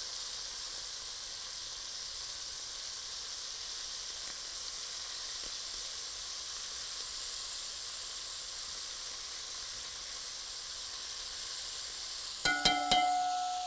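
Pieces of lamb shoulder searing in hot fat in a pot on high heat, a steady sizzle as the meat browns. Near the end come a few sharp clicks and a short ringing clink.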